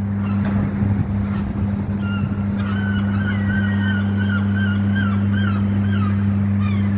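Steady low electrical hum, typical of a substation transformer. From about two seconds in until near the end, a bird's wavering calls sound over it.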